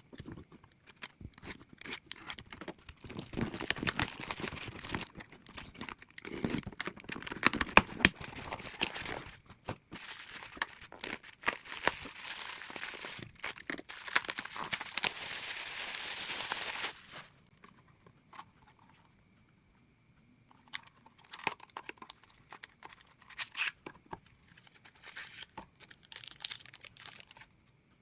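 Packaging crinkling and tearing as a replacement phone LCD screen is unwrapped, with many sharp crackles and clicks. The handling is dense and continuous for most of the first two thirds, then turns quieter and comes in short rustles near the end.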